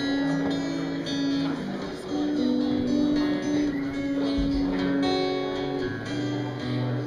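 Acoustic guitar music playing, plucked and strummed chords changing about once a second.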